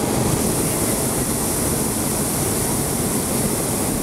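Hot air balloon's propane burner firing: a loud, steady roar.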